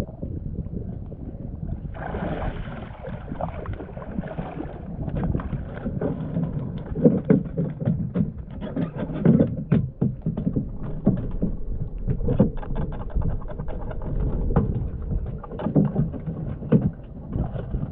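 Water splashing and sloshing in irregular strokes over a steady low rumble.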